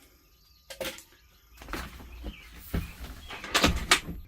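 A series of knocks and clunks from handling and fitting the bunk's parts, a few spaced strokes followed by a quicker cluster near the end, which is the loudest.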